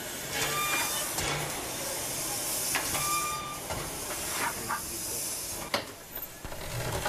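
Steam locomotive standing with steam hissing steadily, with a few sharp metallic clicks near the end.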